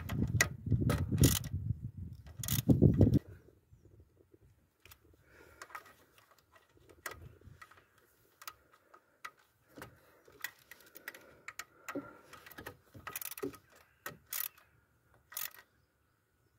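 Scattered metallic clicks and clinks of hands and tools working on fittings around a diesel engine's high-pressure fuel pump. A loud low rumble fills the first three seconds, then only the sparse clicks remain.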